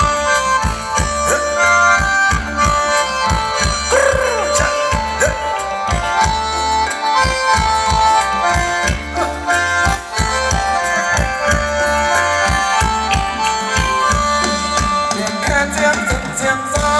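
Live Thai luk thung band music: a steady drum beat under held, reedy melody notes in the khaen style, with one gliding note about four seconds in.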